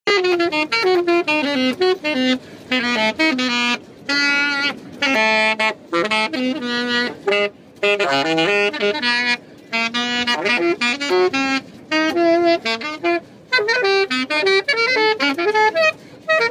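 Saxophone played solo and unaccompanied, close up: quick runs of notes in phrases broken by short pauses every second or two.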